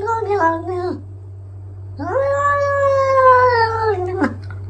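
A cat yowling in long, pitched calls. One call falls away and ends about a second in; a second call starts about two seconds in, holds for about two seconds and drops in pitch at its end. A steady low hum sits underneath.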